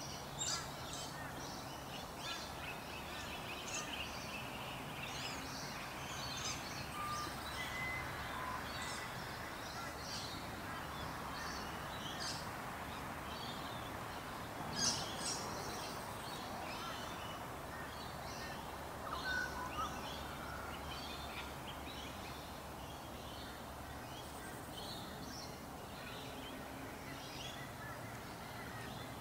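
Small birds chirping with many quick, high calls over a steady background hiss; the loudest calls come about halfway through and again a few seconds later.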